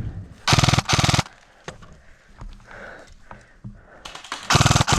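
Airsoft gun firing short rapid-fire bursts of clicking shots: two bursts back to back about half a second in, then another near the end.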